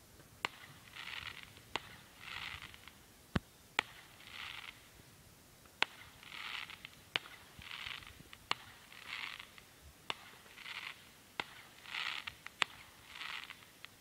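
Distant fireworks going off: about nine sharp, short bangs at uneven intervals. Between them, a soft rasping sound repeats about every second and a bit.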